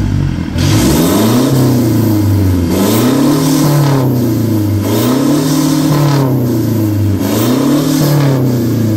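Toyota Hilux GR Sport's diesel engine revved through a full straight-pipe exhaust: about four revs in a row, each rising and falling, roughly two seconds apart.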